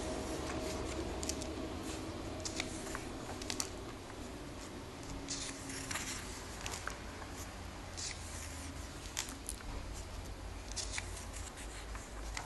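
Handling of a comic book and its packaging: paper and plastic rustling and crinkling, with scattered light clicks and taps.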